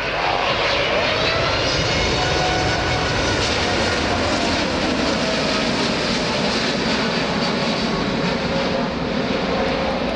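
Boeing 787 Dreamliner's GE turbofan engines as the airliner flies low overhead with gear down: a loud, steady jet roar with several whining tones that slowly fall in pitch as it passes. The sound swells about a second in and stays loud.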